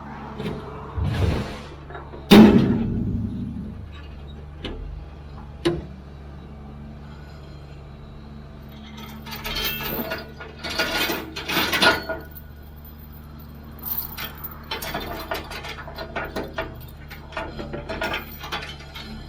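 Heavy equipment engine idling steadily under loud metal clanks and rattles, with one heavy bang about two seconds in and bursts of clanking later on.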